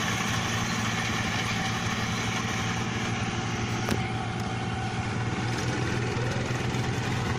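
Rice combine harvester engine running steadily, with one short click about four seconds in.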